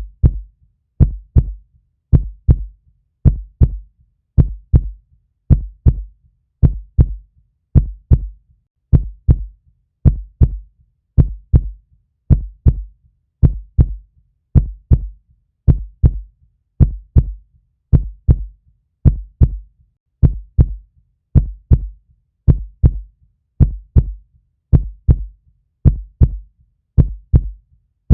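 Heartbeat sound: a steady, slow rhythm of paired low thumps (lub-dub), each pair coming a little more than a second apart.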